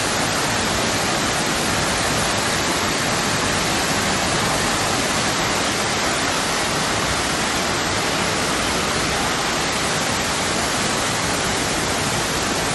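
Floodwater rushing in a swollen river: a loud, steady wash of water noise that doesn't let up.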